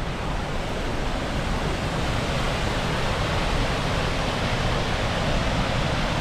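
Steady rushing of Upper McCord Falls, a continuous even roar of falling water.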